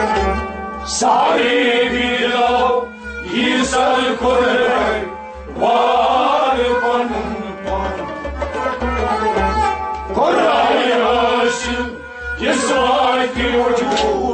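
Kashmiri Sufi song: a man singing in long melodic phrases, accompanied by harmonium and a steady drum beat. Each phrase is separated from the next by a short pause.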